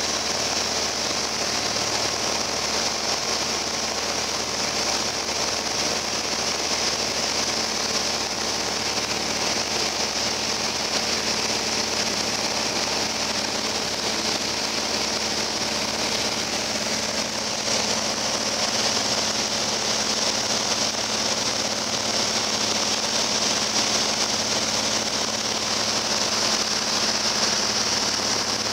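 Steady cabin noise of a Piper Cherokee Arrow in flight: its four-cylinder Lycoming engine and propeller running at a constant setting under a strong hiss of rushing air, growing slightly louder about two-thirds of the way through.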